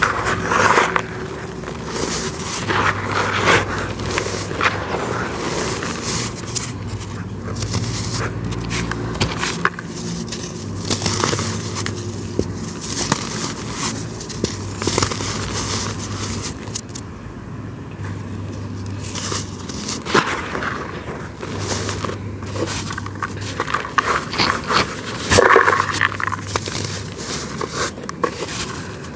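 Dry, gritty crumbling material being crushed and broken by hand, with irregular crackling, crunching and scraping and a few louder crunches.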